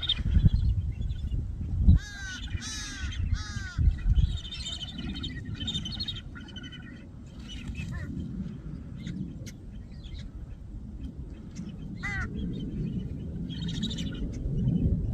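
Crows cawing, a pair of harsh calls about two seconds in and a short run of them near twelve seconds, over a flock of smaller birds chirping continuously. A low rumble of wind or handling noise is loudest at the start.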